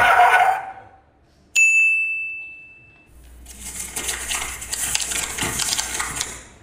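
The dance music dies away, then a single bell ding, a clear high tone that rings for about a second and a half. After it comes a steady crackling hiss, like food sizzling in a pan, for about three seconds.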